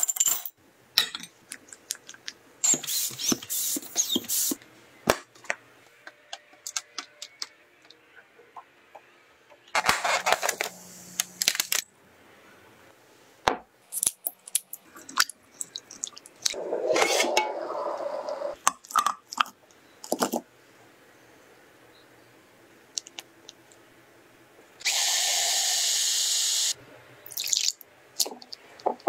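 Kitchen prep sounds on glassware: white chocolate chips clattering into a glass bowl, scattered clinks and taps of glass bowls and utensils, and water sloshing as something is washed in a glass bowl. About 25 seconds in, a steady rush of noise runs for nearly two seconds.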